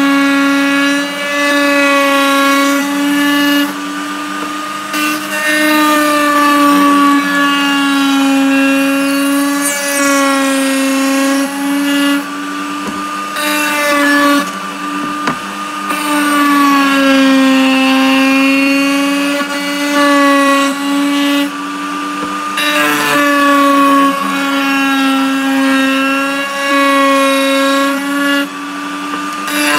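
Table-mounted router running with a steady high whine while cutting chamfers along hardwood slats. Its pitch sags and recovers several times as the wood is pushed past the spinning bit.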